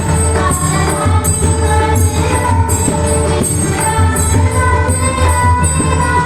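Varkari bhajan music: pakhawaj and tabla drumming with jingling metal percussion keeping a steady beat, under sustained singing.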